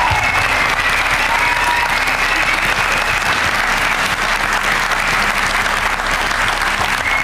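Studio audience applauding.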